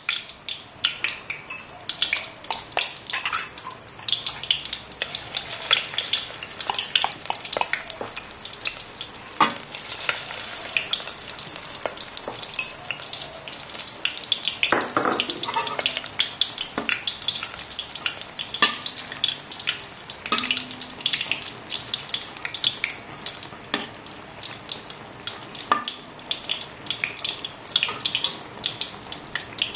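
Vegetable batter fritters deep-frying in hot oil in a wok: a steady sizzle full of small crackles and pops.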